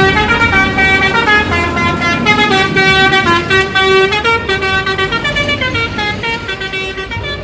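Bus telolet horn playing a multi-note melody, its loud horn tones stepping up and down in pitch for several seconds over a low engine rumble.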